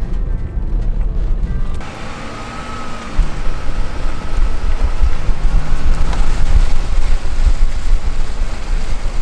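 Road noise from a Ford Transit van's Michelin Agilis CrossClimate tires rolling at speed: at first a low rumble heard from inside the cab, then, about two seconds in, a louder, brighter rush of tire roar and wind picked up right beside the front wheel.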